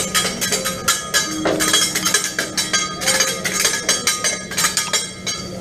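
Metal spatulas clinking and scraping on a teppanyaki griddle in a fast, even rhythm, about five sharp ringing clicks a second.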